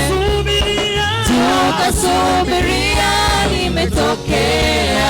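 Swahili gospel praise song: singers with a live band, voices over a steady bass line and keyboard.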